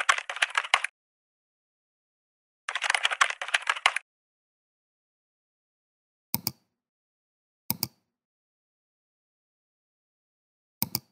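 Computer keyboard typing in two quick bursts of clicks, then three single mouse clicks spaced a second or more apart.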